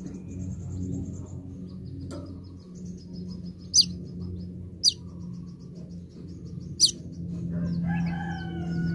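Sunbird singing: thin, fast twittering trills broken by three short, loud downslurred notes. A rooster crows near the end.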